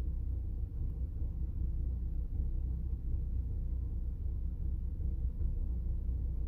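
Renault Clio 1.0 TCe three-cylinder turbo petrol engine idling just after a cold start, a low, uneven rumble whose level keeps wavering. The owner describes the cold idle as rough, with the idle speed fluctuating significantly and noticeable vibration.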